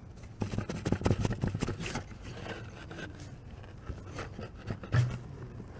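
Steel earth auger scraping and crunching through loose dirt as it is worked along a trench, densest in the first couple of seconds, with a single sharp knock about five seconds in.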